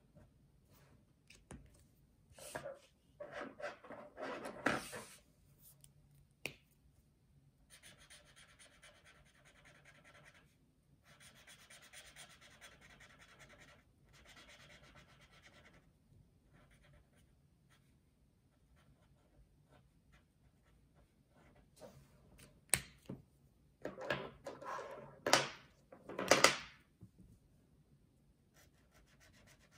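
Felt-tip marker pens scratching and rubbing across paper as a picture is coloured in, in faint stretches. Twice, louder rustling with sharp clicks as markers are handled and swapped.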